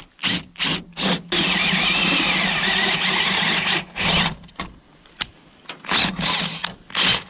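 Power drill with a 1/2-inch twist bit boring through sheet-steel truck hood, enlarging a 1/4-inch hole: several short trigger bursts, then about two and a half seconds of steady drilling, then more short bursts near the end.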